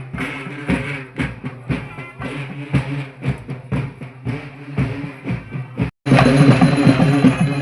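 Festival drumming, a steady run of drum strikes with other instruments holding a low tone underneath. It cuts out for a moment about six seconds in, then comes back louder and fuller.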